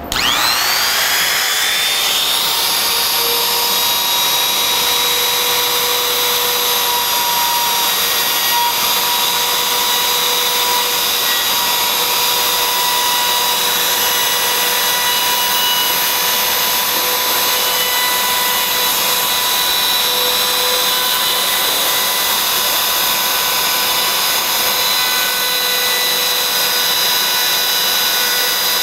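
Makita trim router starting up, its whine rising to full speed in the first second or two, then running steadily. It is routing out the shallow recess for the door strike plate in a wooden door jamb.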